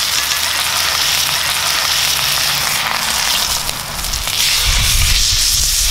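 Ribeye steak sizzling hard in hot butter in a cast iron pan over lump charcoal: a steady, loud frying hiss. About four and a half seconds in, a deeper, louder sound joins it.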